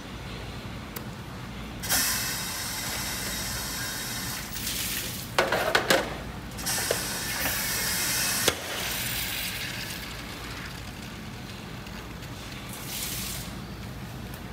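Hissing water spray in several bursts, with stainless-steel tofu trays and molds clattering and one sharp metal clack, over a steady low machine hum.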